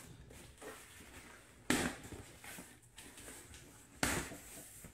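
Cardboard shipping box being pulled open by hand, with rustling and scraping of the cardboard and two sudden loud sounds, one a little under two seconds in and one about four seconds in.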